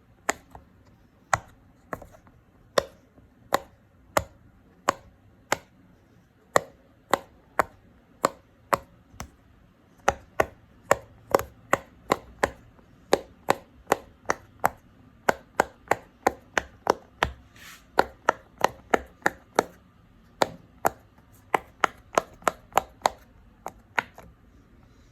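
Silicone push-pop fidget toy bubbles being pressed one after another, each giving a sharp little pop. The pops come slowly at first, then speed up to about two or three a second from about ten seconds in.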